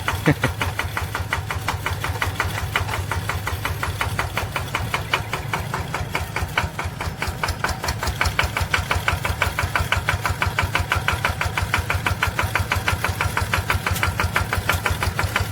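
Small Japanese engine on a homemade tracked rice-spraying machine running steadily at idle with a rapid, even chugging knock, just after being hand-cranked to start.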